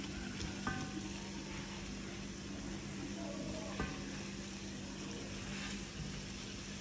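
Akara bean fritters deep-frying in hot oil in a wok: a steady sizzle, with a few faint clicks as a slotted spatula turns them. A steady low hum runs underneath.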